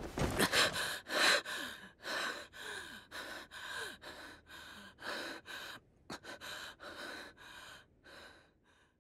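A voice actor's quick, heavy panting breaths and gasps, about three a second, growing quieter and stopping near the end.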